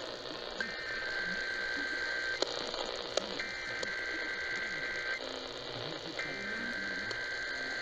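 Emergency Alert System SAME header: three bursts of two-pitch digital data warble, each just under two seconds with about a second between them, over radio hiss. This header marks the start of an EAS monthly test broadcast.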